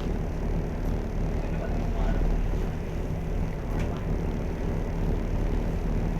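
Steady low drone of a car ferry's engines, with a constant rushing noise over it.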